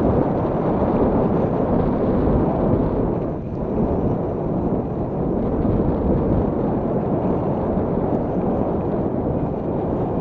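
Steady rushing wind noise on an action camera's microphone, carried on a bicycle riding along a dirt road.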